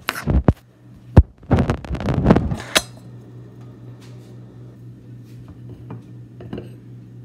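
Handling noise from a phone camera being moved and set in place: a cluster of knocks and rubbing on the microphone in the first three seconds, the sharpest knock about a second in. A steady low hum runs underneath.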